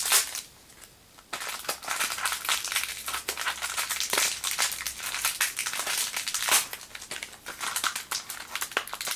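Plastic packaging crinkling and rustling in irregular handfuls as the parts of a Beyblade Burst booster pack are unwrapped, with a short pause about half a second in.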